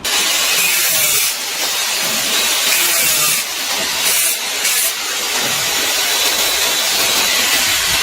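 A steady, loud hiss with a few brief dips in level.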